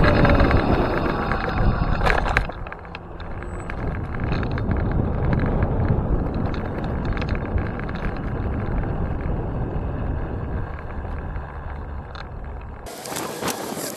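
Riding a Kugoo M4 Pro electric scooter: steady road and tyre rumble with wind buffeting the microphone, louder for the first two seconds. Near the end it cuts off abruptly.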